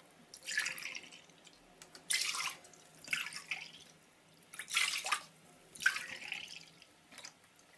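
Milk poured from a carton into a drinking glass and emptied into a stainless steel pot, in about six short pours with brief pauses between them.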